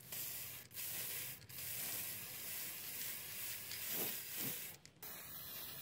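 Aerosol spray paint can hissing as it sprays paint, in long bursts with brief breaks about a second and a half apart early on, then a short break near the end before it continues more quietly.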